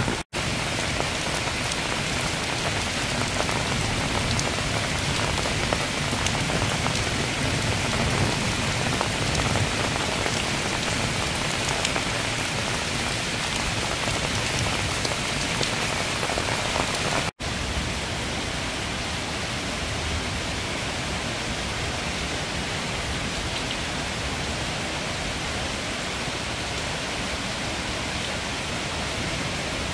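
Heavy rain shower pouring down on a paved path, hedges and grass: a dense, steady hiss of rain. It drops out for an instant twice, about a third of a second in and a little past halfway, and after the second break it is slightly softer and smoother.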